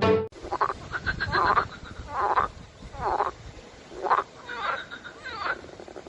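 A frog calling: about seven short croaks, each a quick run of pulses, coming at irregular gaps of half a second to a second. A note of music cuts off right at the start.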